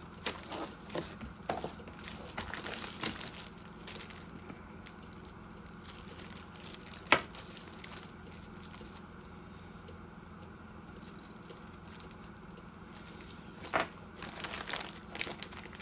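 Packaging crinkling and small parts clicking as rotary-tool accessories are handled, with one sharp click about seven seconds in, a quieter stretch, then more rustling near the end.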